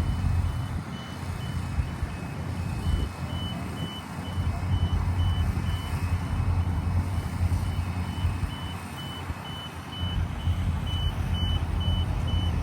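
Back-up alarm on heavy construction equipment, a steady run of short high beeps about two a second, over the low drone of heavy engines running.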